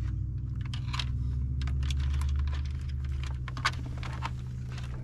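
Hands handling wiring and plastic trim inside a truck dashboard: rustling cables and a run of small clicks and taps as wires are tucked up behind the dash panel, over a steady low hum.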